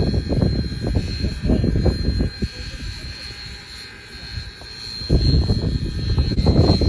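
Irregular low rumbling gusts, typical of wind buffeting the microphone, easing off for a couple of seconds midway and then returning, over a faint steady high tone.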